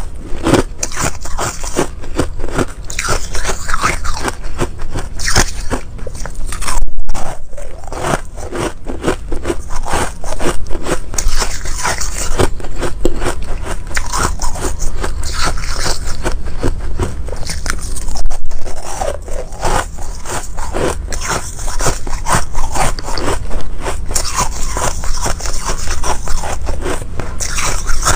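Close-miked crunching and chewing of frozen shaved ice: a continuous run of crisp, crackling crunches as the packed ice breaks between the teeth, with louder bites about seven seconds in and again near eighteen.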